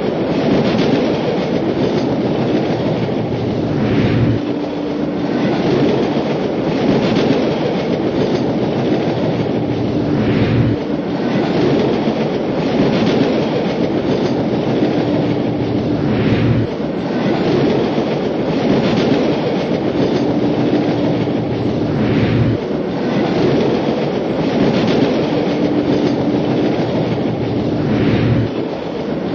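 Sound effect of a train rolling on rails, a steady rumble with the clickety-clack of wheels over rail joints, repeating about every six seconds.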